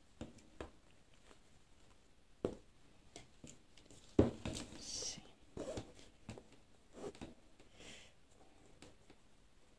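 Scattered light taps, knocks and rustles of hands handling embroidery ribbon and fabric, with one sharper knock about four seconds in.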